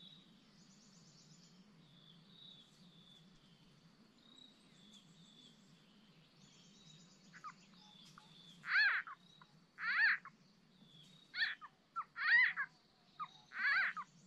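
Small frogs (nhái) calling. Faint high chirping through the first half, then from a little past halfway about six loud croaking calls, each about half a second long, coming roughly every second or so.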